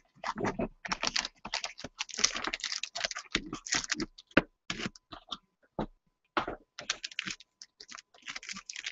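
Irregular clicks, taps and rustles of a cardboard trading-card box being opened and handled, with its lid lifted off and the foil pack inside taken out and crinkled in the hands.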